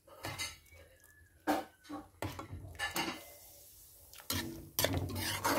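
A metal utensil ladling a coconut-milk stew, with several separate clinks and scrapes against a metal wok.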